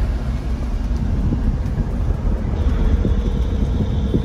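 Steady rumble of a car driving, road and engine noise heard inside the cabin.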